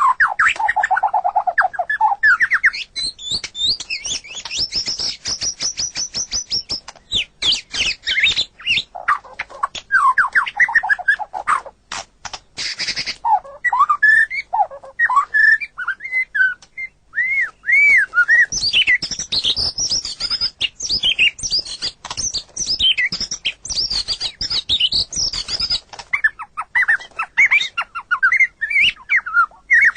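A murai (Copsychus songbird) singing loudly: a long run of varied whistled phrases, quick rising and falling sweeps and trills, with bursts of rapid clicking chatter partway through.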